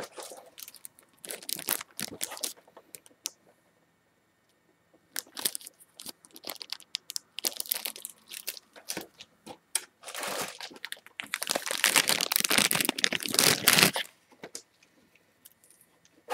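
Packaging handled by hand inside an open cardboard box, rustling and crinkling in short bursts, then a longer, louder stretch of crinkling and tearing from about ten to fourteen seconds in.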